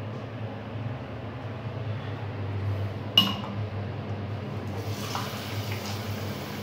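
A ceramic mug clinks once against a ceramic washbasin about three seconds in. From about five seconds in, the tap runs and water pours into the mug, filling it.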